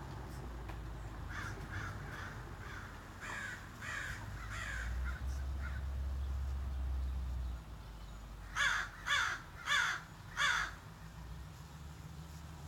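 Crow calling: a run of about eight softer calls, then four loud caws in quick succession about two-thirds of the way through, over a steady low rumble.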